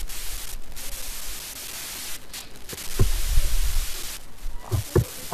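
Steady hiss of static on a Skype call line, dropping out in several short gaps, with low rumbling coming in about three seconds in.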